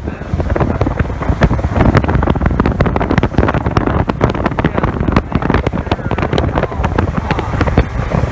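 Motorboat running at speed over light chop, the hull slapping the water in rapid irregular knocks over a steady engine rumble, with wind buffeting the microphone.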